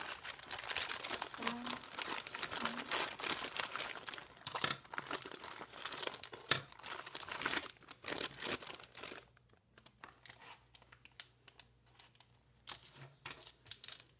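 Plastic lollipop wrapper crinkling and crackling as it is handled, dense for the first nine seconds or so with one sharp loud crackle about six and a half seconds in, then fainter, scattered crackles.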